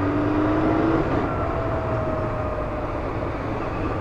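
Yamaha FZS600 Fazer's 600 cc inline-four engine running under way, with wind rush on the helmet microphone. The engine note climbs a little in the first second, then settles lower and steady.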